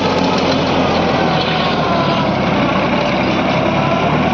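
New Holland 3630 tractor's diesel engine working under steady load as it drives a rotavator, with the tiller blades churning through grassy soil: a continuous, even mechanical din.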